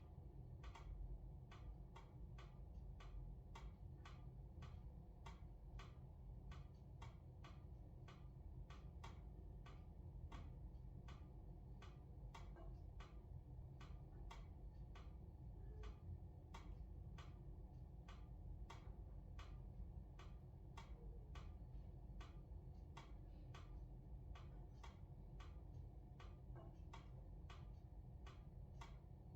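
Wood briquettes burning in a fireplace: a faint, steady run of small crackles, about two or three a second, over a low rumble of the fire.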